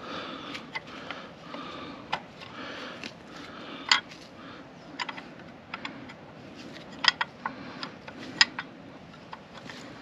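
Spanner working a bolt on a tractor engine: irregular sharp metal clicks and clinks, a few louder ones around the middle and later on.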